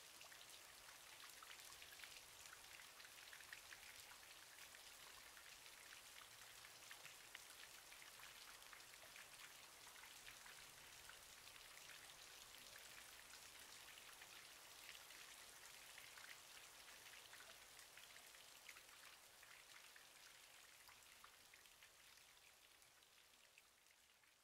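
Faint steady rain, a patter of many small drops, fading out near the end.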